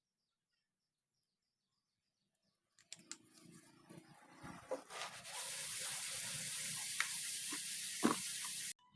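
A loud steady hiss, like a spray, with scattered clicks and knocks. It builds from about three seconds in, is strongest from about five seconds, and cuts off suddenly near the end.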